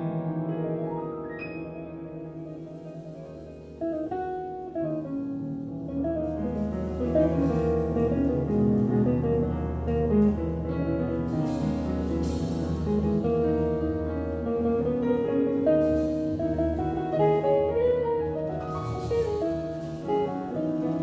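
Live jazz quartet of archtop guitar, grand piano, double bass and drum kit playing a slow piece. Sustained piano chords carry the quieter opening, then the double bass and swelling cymbals come in about four to six seconds in and the full band plays on.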